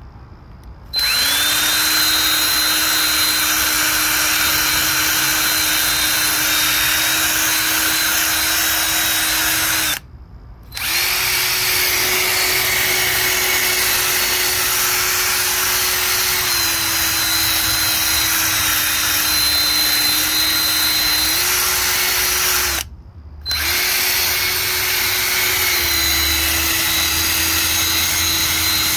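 A power tool spinning at the cylinder heads of a 5.3 L V8, cleaning them. It runs in three long stretches, spinning up quickly each time, with short stops about ten seconds in and again near twenty-three seconds. Its pitch steps down and up slightly as it works.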